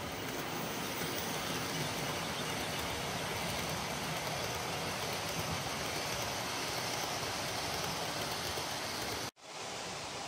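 OO gauge model steam locomotive and coaches running past on the track, a steady whirring rumble of motor and wheels on rail. The sound cuts out for an instant about nine seconds in, then a similar steady running noise resumes, a little duller.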